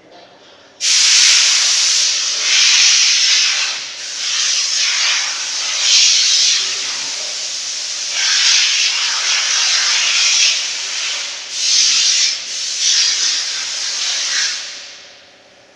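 Loud rubbing, scraping noise in uneven surges, starting suddenly about a second in and fading out near the end.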